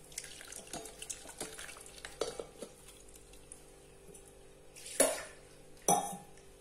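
Light clinks and scrapes of a mixer jar against a plastic sieve as thick blended carrot pulp is poured in, then two louder knocks of kitchenware near the end, about a second apart.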